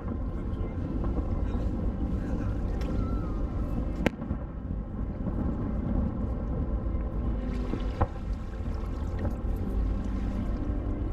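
Steady low rumble of wind and water at the shoreline, with faint crowd voices and three sharp cracks about four seconds apart.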